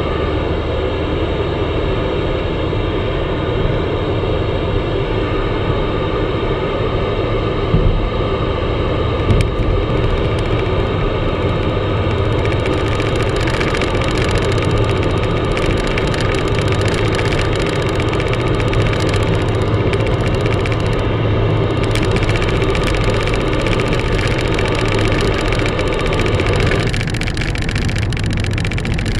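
Car engine and tyre noise heard from inside the cabin while cruising at motorway speed, steady throughout, with a couple of small knocks about eight and nine seconds in.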